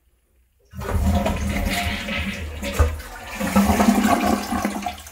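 Toilet flushing: a sudden rush of water starting about a second in, running for about four seconds and tailing off near the end. The tank is being flushed to drain it with its water supply turned off.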